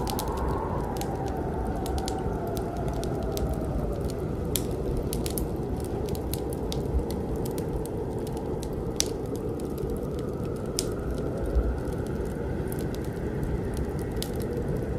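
Steady low rushing noise with scattered sharp crackles and clicks throughout.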